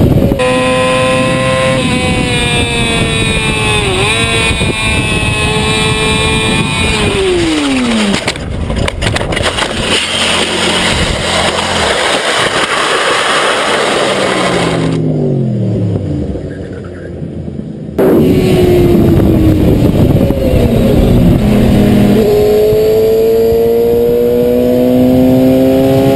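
Yamaha sportbike engine running at high revs at speed, its pitch dipping briefly and then falling off about eight seconds in. A long rough, noisy stretch follows: the crash after the front wheel lost traction, the bike sliding and tumbling, dying down around fifteen seconds. At about eighteen seconds the engine cuts back in abruptly, its revs climbing steadily toward the end.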